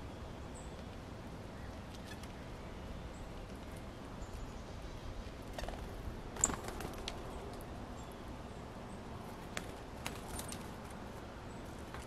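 Backyard ambience: a steady low background noise with a few faint, very short high bird chirps and scattered small clicks, the sharpest click about six and a half seconds in.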